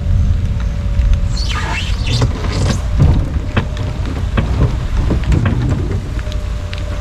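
Rain pattering on a boat over a steady low rumble, with scattered sharp drop ticks; a few quick falling squeaks come about a second and a half in.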